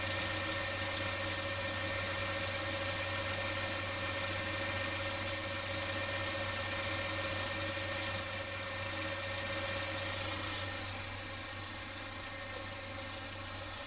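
Mercedes-Benz W246's M270 four-cylinder petrol engine running after a cold start, with a fast, high-pitched "chi-chi-chi-chi" ticking repeating several times a second over the engine note, which the owner flags as an abnormal noise. The treble is boosted in the recording.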